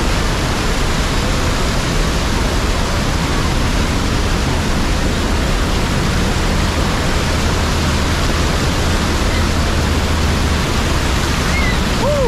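Water pouring over a wide waterfall and churning close around the microphone: a loud, steady rush of white water.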